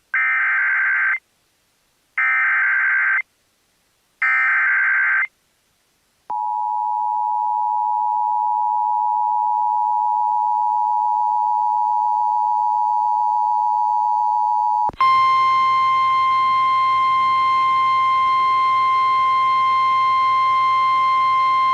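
Opening of an Emergency Alert System weather alert. First come three one-second bursts of the warbling SAME digital header. Then the steady two-tone EAS attention signal sounds for about eight seconds, followed by a single steady tone over radio hiss, the NOAA Weather Radio warning alarm tone, which stops near the end.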